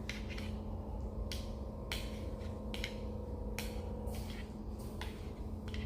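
Spice rub being shaken out of a seasoning shaker over chicken wings, about a dozen quick shakes at uneven intervals, over a steady low hum.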